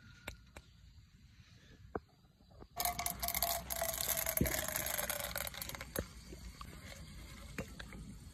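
Popcorn kernels poured from a plastic bag into hot oil in a small pot on a camping gas stove: a sudden sizzle and crinkle about three seconds in that fades over the next few seconds. A few light clicks of kernels and the pot come before and after.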